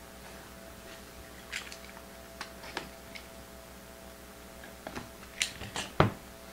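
Someone handling and opening a box of trading cards: a few scattered short clicks and crinkles of cardboard and wrapping, the loudest near the end, over a faint steady hum.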